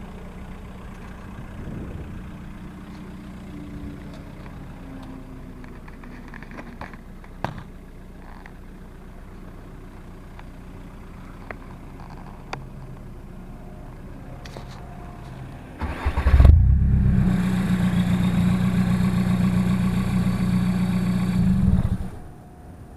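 Seat Leon 1.9 TDI four-cylinder turbodiesel with a straight-pipe exhaust idling, then suddenly revved about sixteen seconds in and held at a steady high rev for about five seconds before dropping back to idle.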